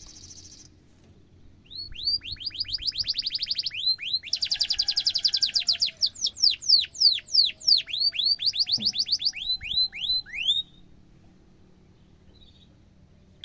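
Domestic canary singing a long phrase of rapidly repeated downward-slurred whistled notes, with a fast rolling trill in the middle. The song stops abruptly about three-quarters of the way through.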